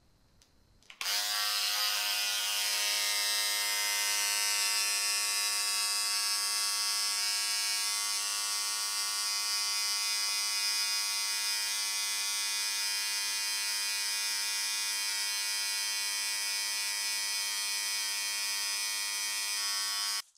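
Electric toothbrush running with a steady buzz, switched on about a second in and cutting off abruptly just before the end.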